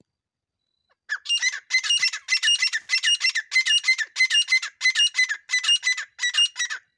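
Caged female teetar (partridge) calling: a fast run of about ten repeated phrases, roughly two a second, starting about a second in and stopping just before the end.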